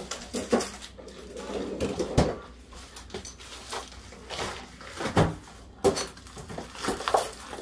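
Irregular knocks and clunks of kitchen handling at a steel worktable, with door or cupboard sounds; two knocks stand out, about two seconds and five seconds in.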